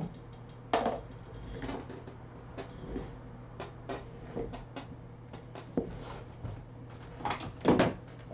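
Small objects being handled on a workbench: scattered clicks and knocks, with two louder knocks about a second in and near the end, over a steady low hum.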